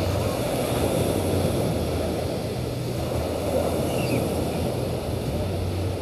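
Steady wind noise on the microphone over the wash of small surf on a choppy sea.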